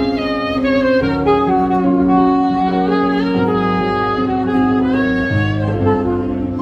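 Instrumental music: a melody of held notes over sustained low chords, with no singing.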